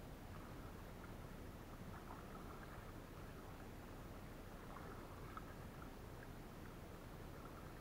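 Faint water sounds around a kayak on calm water: a steady low wash with scattered small drips and ticks.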